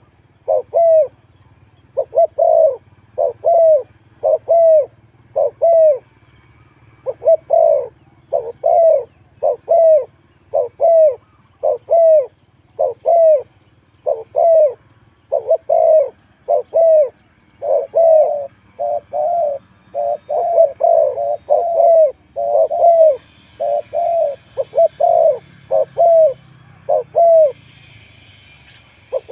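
Spotted dove cooing over and over, short low coos at about two a second in runs broken by brief pauses.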